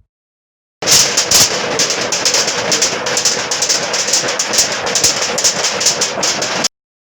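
A rattling Foley clatter made with household items: dense and loud, packed with rapid irregular clicks. It starts abruptly about a second in and cuts off suddenly near the end.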